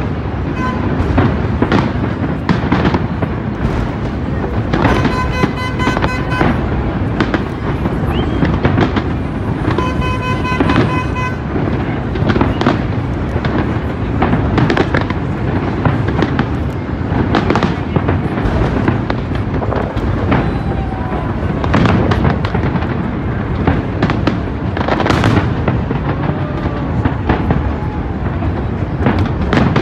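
Aerial fireworks display going off in a continuous barrage of bangs and crackling bursts.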